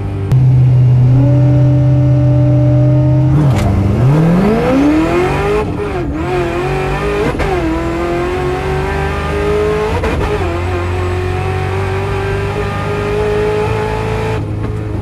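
Supercharged LS3 V8 of a 2004 Pontiac GTO, heard from inside the cabin: it holds steady revs for about three seconds, then launches hard, its pitch climbing through the gears with three quick breaks as the six-speed manual is upshifted.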